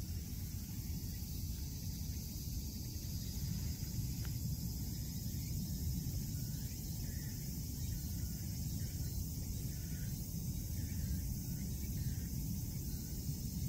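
Steady outdoor ambience: a high, even insect chirring over a constant low rumble on the microphone.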